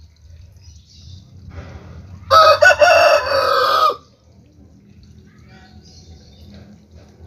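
A rooster crowing once, loud, a single wavering call lasting under two seconds, starting about two seconds in.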